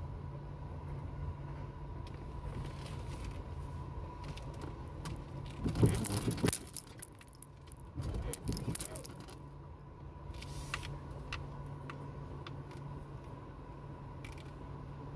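Car engine running steadily, heard from inside the cabin as a low hum, with a brief loud clatter about six seconds in.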